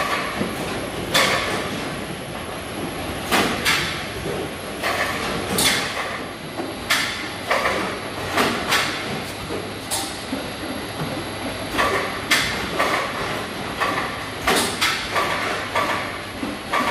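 Cardboard boxes of peaches rolling and clattering along a skate-wheel roller conveyor and being knocked into place as they are stacked: irregular sharp knocks over a steady background hum.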